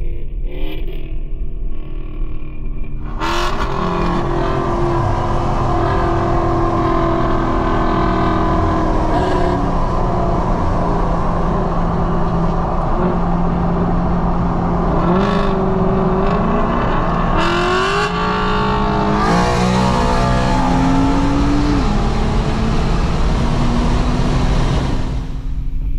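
Infiniti Q50 3.0t's twin-turbo V6 pulled hard at full throttle, heard from inside the cabin. The engine comes on strongly about three seconds in, its pitch climbing and stepping back down with each upshift as the car accelerates past 90 mph, then it eases off near the end.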